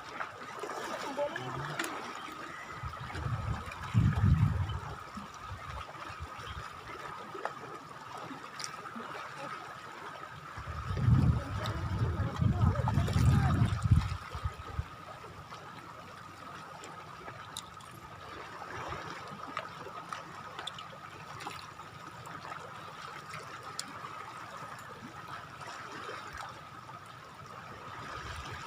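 Water lapping and trickling at the shoreline, with a thin steady high tone over it. Two spells of low rumbling come and go, a few seconds in and again around the middle.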